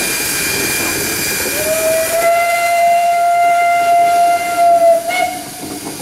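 Steam whistle of the SNCF 141 R 840 steam locomotive blowing one long, steady note for about three and a half seconds, then a brief short toot, over a continuous hiss of steam.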